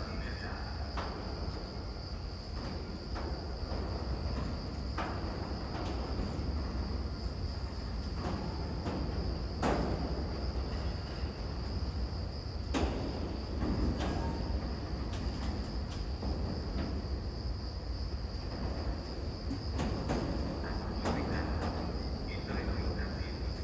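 Railway station ambience: a steady low rumble under a constant high-pitched trill, with a few scattered knocks, the sharpest about ten and thirteen seconds in.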